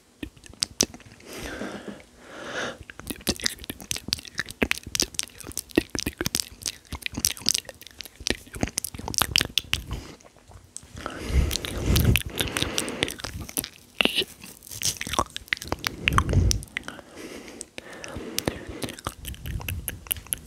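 ASMR mouth sounds close to a microphone: rapid wet clicks and smacks of lips and tongue, with two louder low puffs of air on the microphone partway through.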